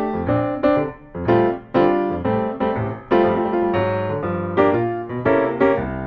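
Background piano music: a steady run of struck notes and chords, each one starting sharply and then fading.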